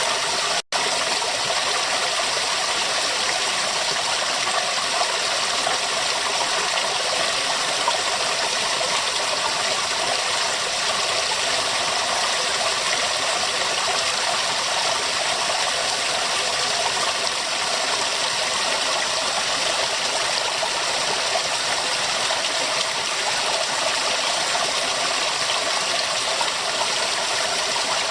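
River water running steadily, an even rushing and splashing flow. It drops out for an instant once, just under a second in.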